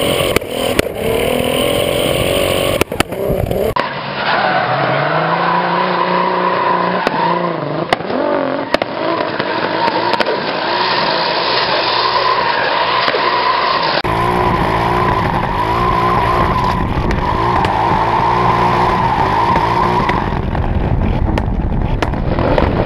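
BMW E36 drift car's engine revving up and down through a drift, with its tyres squealing. The sound changes abruptly about 4 and 14 seconds in, where the recording switches between the onboard and trackside cameras.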